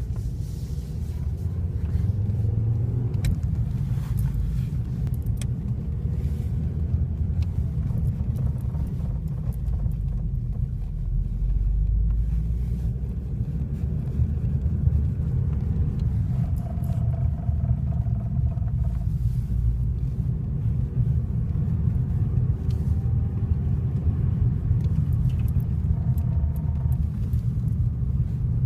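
Ford Focus ST driving with a steady low rumble and occasional faint knocks: the knocking noise that comes when turning left while the car is cold.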